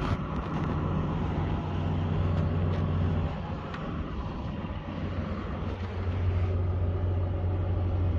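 Tractor engine running steadily at a constant speed while pulling a grass seeder.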